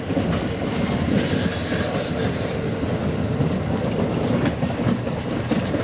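Amtrak passenger cars rolling past close by, with a steady rumble and clatter of steel wheels on the rails.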